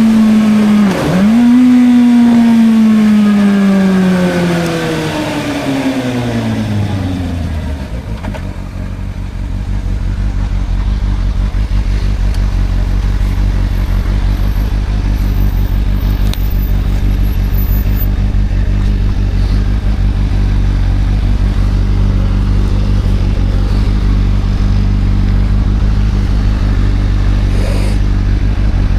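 Suzuki GSR 600's inline-four engine running at high revs, with a brief dip and recovery about a second in. The revs then fall steadily over several seconds, and the engine settles into a steady idle for the rest.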